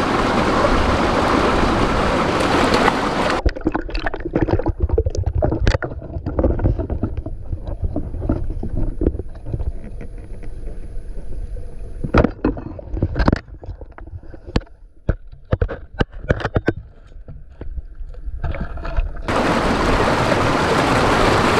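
Rushing stream water at the surface, then about three seconds in the sound turns muffled as the microphone goes underwater: a low rumble with bubbling and many sharp clicks and knocks. Near the end the open-air rush of water returns.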